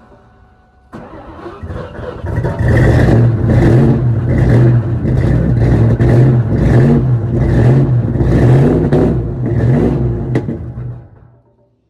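Ford Mustang engine running through its exhaust and blipped repeatedly, about twice a second, from about a second in until it stops abruptly near the end. A mechanic has traced this engine's ticking to worn crankshaft and connecting rods.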